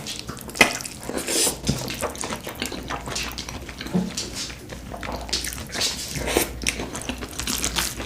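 Close-miked wet eating sounds: chewing and mouth smacks in a rapid, irregular run of small clicks.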